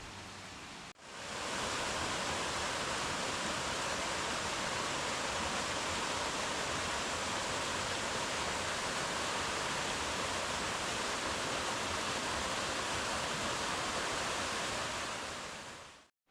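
Waterfall pouring: a steady rush of falling water that comes in about a second in and cuts off abruptly near the end.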